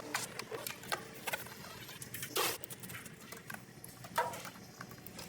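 Scattered light clicks and taps, with two short louder scrapes or rustles about two and a half and four seconds in.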